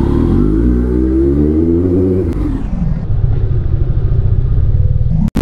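Kawasaki Z900's inline-four engine revving up and easing off, then running with a low, rapid, rough pulsing as the throttle closes. The sound cuts out for an instant near the end.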